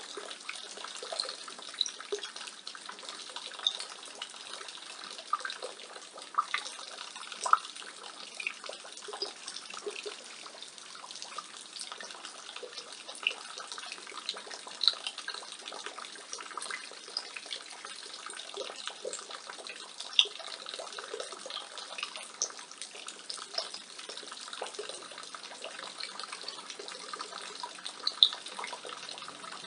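Rainwater falling from a roof gutter and splashing below: a steady splashing trickle with irregular sharper drips and splashes throughout.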